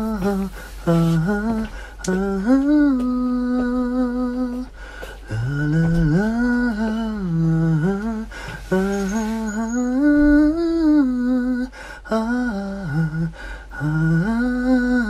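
A man humming a slow, wordless melody in a low voice, in several phrases with long held notes and short breaths between them: a studio take of a hummed song being rehearsed.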